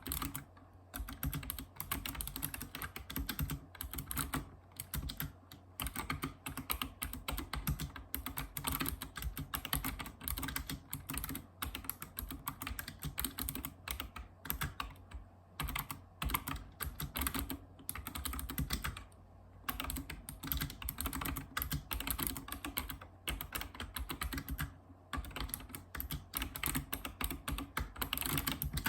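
Typing on a Razer Ornata Chroma mecha-membrane keyboard: a fast, continuous run of keystroke clicks, broken by a few brief pauses.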